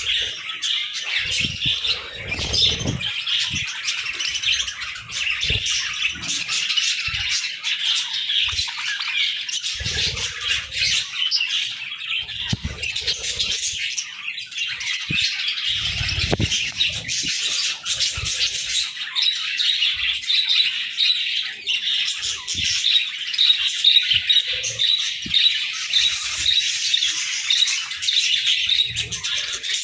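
A group of budgerigars chattering and chirping without a break, a dense, busy mix of warbles, chirps and squawks. Occasional soft low thumps sound underneath.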